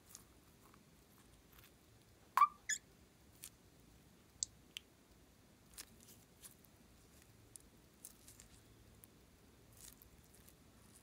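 A rubber balloon squeezed between fingers as white glue trickles from it in a thin stream: faint scattered clicks, with a short squeak of rubber about two and a half seconds in.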